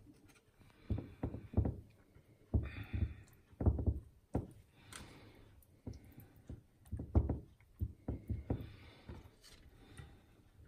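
Irregular thumps and knocks with some rustling: kitchen items being handled and set down on a counter.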